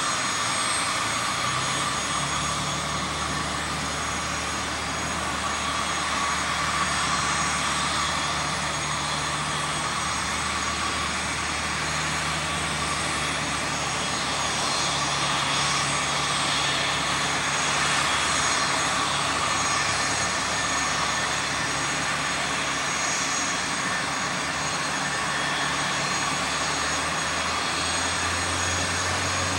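Cessna LC42-550FG Corvalis's six-cylinder piston engine and propeller running at low taxi power, a steady drone. The low engine note steps up slightly near the end.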